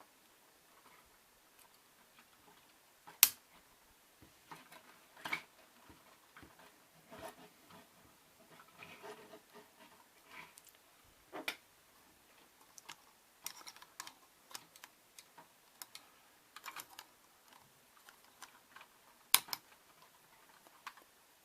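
Plastic K'NEX pieces and joints clicking and rattling as they are handled, pulled apart and snapped back together, in irregular clicks with two sharp, loud snaps, one about three seconds in and one near the end.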